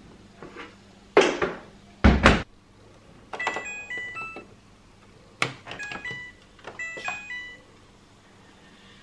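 Two heavy thumps, then a tumble dryer's control panel beeping: short electronic tones at a few different pitches with small clicks, in two runs of several beeps as the programme knob is turned and a cycle is set.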